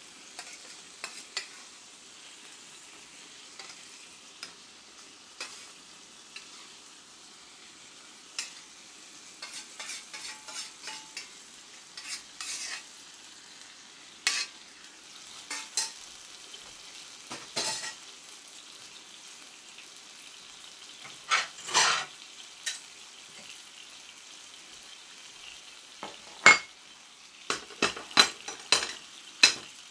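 Marinated pork belly sizzling in a frying pan, with repeated clinks and scrapes of a metal spoon on a steel plate as the marinade is scraped into the pan. Near the end, metal tongs clatter several times against the pan.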